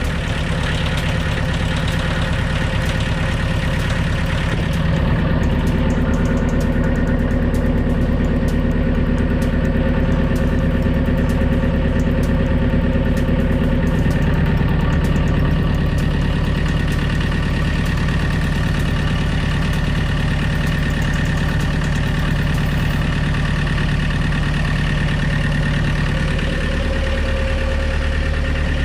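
Excavator engine running at a steady idle, with a slight change in pitch near the end.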